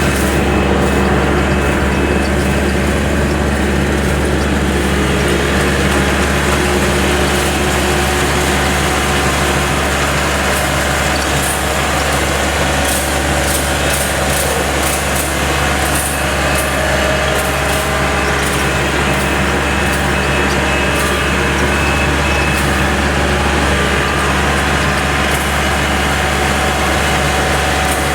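Yanmar GC333 combine harvester running steadily under load, its engine and threshing machinery giving a constant low hum with several steady tones. A run of sharp, high ticks comes in and out through the middle.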